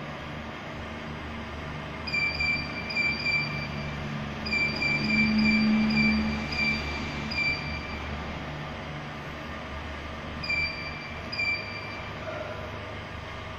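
Check weigher touchscreen giving short high key-press beeps as settings are typed in: a quick run of beeps about two seconds in, a longer run from about four and a half seconds, and two more near the end. A steady low machine hum runs underneath.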